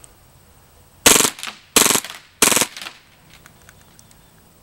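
KWA Scorpion (KZ.61) gas blowback airsoft machine pistol firing on full auto: three short bursts about two-thirds of a second apart, each a fast rattle of shots, followed by a few faint clicks.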